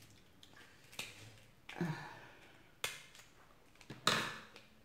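Sharp clicks and cracks of crab shell being worked as the meat is picked out, three clicks in all, mixed with short breathy mouth noises, the loudest about four seconds in.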